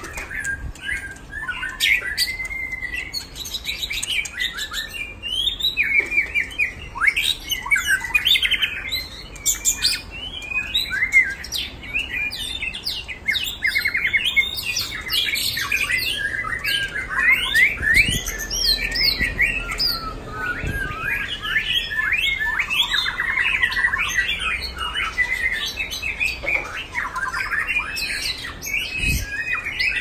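Many caged songbirds chirping, trilling and whistling at once, their calls overlapping in a dense, continuous chorus.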